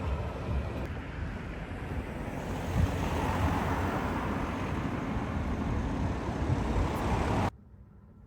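Wind buffeting the microphone over outdoor city ambience, a steady rushing noise that cuts off abruptly near the end to quiet room tone.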